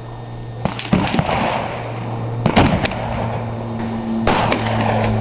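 Gunfire: sharp cracks in quick succession, coming in three clusters about a second in, at two and a half seconds and just past four seconds, over a steady low hum.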